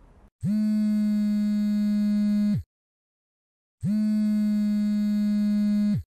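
An iPhone buzzing on a wooden table with an incoming call: two long buzzes of about two seconds each, about a second apart, each sliding up in pitch as it starts and down as it stops.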